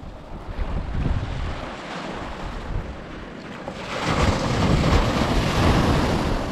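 Small sea waves breaking and washing up a sandy shore, with wind buffeting the microphone. The surf grows louder about four seconds in as a wave breaks and runs up the sand.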